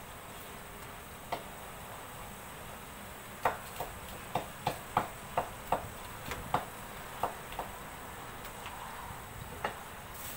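Kitchen knife chopping on a wooden cutting board: about a dozen sharp, uneven knocks, most of them close together in the middle, with single strokes a little over a second in and near the end.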